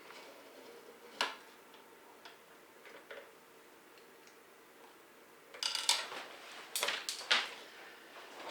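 Small hard pen-kit parts clicking and clattering on a workbench: a few light clicks, then a louder run of sharp knocks and clatter about six to seven and a half seconds in.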